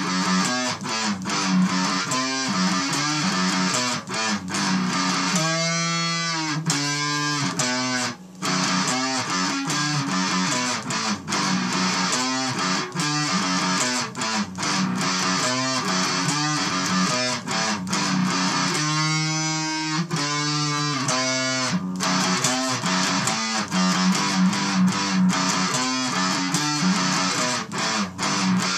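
Heavily distorted electric guitar playing a loud, buzzy run of chords and riffs. Twice it holds notes that waver in pitch: about six seconds in, and again around twenty seconds.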